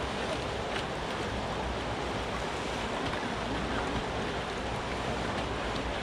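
Fast-flowing river water rushing steadily, a constant even noise with no changes.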